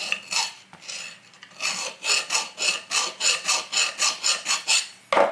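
Metal file rasping back and forth across the rough cast bed (blade seat) of a block plane, smoothing down casting bumps in quick even strokes, about four a second, after a short pause near the first second. A sharp knock just before the strokes stop.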